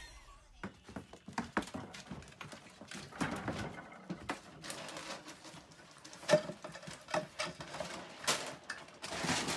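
A dog's claws scratching and clicking on a plastic storage bin as it scrambles up and climbs into it, with rustling and one sharper knock about six seconds in.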